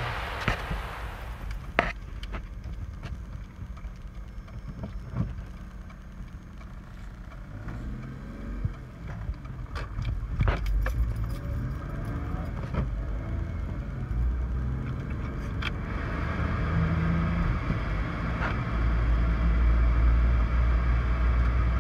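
Car driving, heard from inside the cabin: a low engine and road rumble that grows louder as the car gathers speed in the second half, with a few light clicks and rattles scattered through it.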